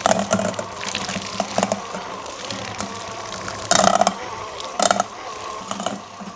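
A KitchenAid cordless hand mixer runs with a steady motor hum, its beaters shredding cooked chicken breasts in a stainless steel bowl. Sharp clatters come now and then as the beaters knock against the bowl, the loudest about four seconds in.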